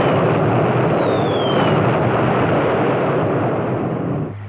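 Dense rumbling blasts of an air raid, with short falling whistles, a little over a second in. Near the end the din drops away to the steady drone of an aircraft engine.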